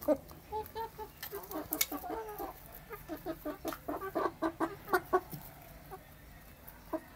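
Domestic chickens clucking while they feed: short low clucks, running into a quick series of about four or five a second in the middle. Sharp taps of beaks pecking at the food bowl are scattered among them.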